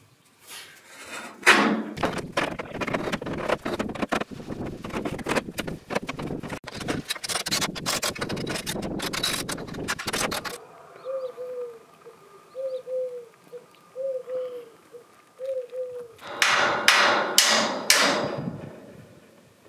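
Rapid clatter of knocks and metal clanks from steel scaffold tubes being handled and fitted together. A pigeon then coos in short repeated phrases, and near the end come four loud sharp knocks.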